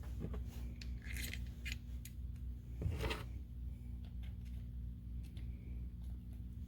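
Small metal parts of an air impact wrench being handled and fitted together during reassembly: scattered light clicks, with a louder clatter about three seconds in, over a steady low hum.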